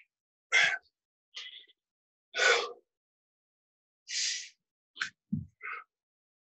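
A man's hard, sharp breathing during a set of push-ups: about seven short, forceful exhales and gasps in an uneven rhythm, one of them lower, like a grunt.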